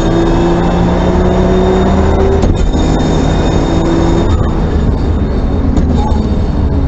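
Racing car's engine heard from inside the cabin, pulling hard with its pitch climbing, broken by gear changes about two and a half and four seconds in, then easing as the car slows for a corner near the end. Road and wind noise run underneath.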